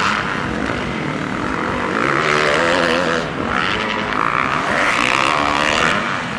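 Motocross bike engines revving, louder from about two seconds in, the pitch rising and falling.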